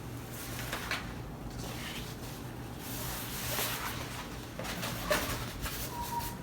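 Handling noises: soft rustling and a few light taps and scrapes as canvas prints and their packaging are moved about.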